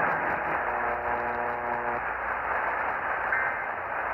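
Over-the-air reception of WHAS-AM with a steady hiss of static. A steady pitched hum sits under it for the first two seconds, and a brief faint high tone comes about three seconds in.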